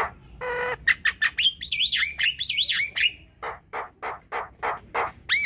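Javan myna (jalak kebo) singing a varied song. It starts with a short nasal squawk, then gives about two seconds of quick whistled notes that glide up and down, then a run of harsh rasping notes at about three a second.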